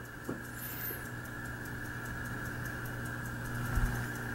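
Clockwork movement of a Mosler time lock ticking in a fast, even rhythm, over a low steady hum, with a soft knock near the end.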